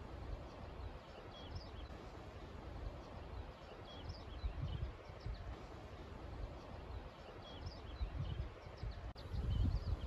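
Wind buffeting the microphone in gusts, strongest near the end, over a meadow of swaying grass. Small birds give short, high chirps and twitters in the background.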